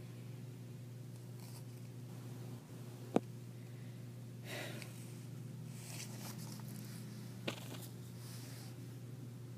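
Soft rustling of clothing and fabric being handled, over a steady low hum, with a sharp click about three seconds in and a smaller click about seven and a half seconds in.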